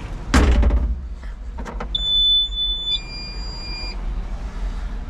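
A vehicle's engine idling low, with a thump about a third of a second in, then two steady electronic tones of about a second each, the second higher than the first, like a vehicle warning chime.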